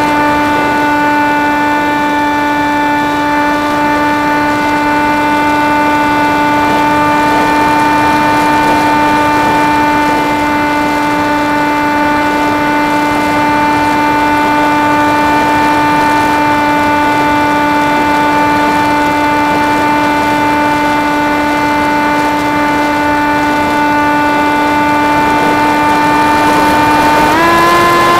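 Electric motor and propeller of a Theory Type W RC flying wing heard from its onboard camera: a steady whine with air rushing past, its pitch stepping up near the end.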